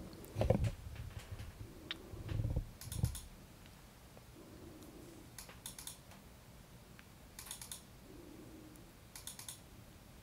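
Computer mouse buttons clicking in quick double-clicks: four short clusters of clicks a couple of seconds apart, with two dull thumps in the first three seconds.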